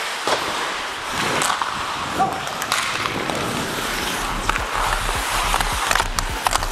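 Ice hockey skates scraping and carving on rink ice, with sharp clicks of sticks and puck hitting. A low rumble joins about four seconds in as the skater picks up speed.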